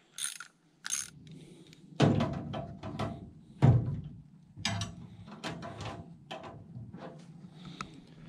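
A couple of quick ratchet clicks, then irregular metal clunks and knocks as a painted galvanized-steel Texas Hunter deer feeder is handled and assembled. The loudest clunks come about two seconds in and again just before four seconds in.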